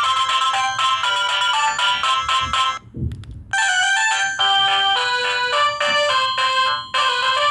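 LG SD2130 phone playing its ringtones: quick electronic note melodies. One tune cuts off about three seconds in, a soft thump and a few faint clicks fill a short gap, and a different tune starts half a second later.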